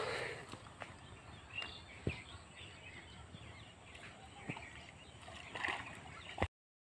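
Quiet rural outdoor ambience with faint bird chirps and a few soft, isolated knocks. The sound cuts out to silence briefly near the end.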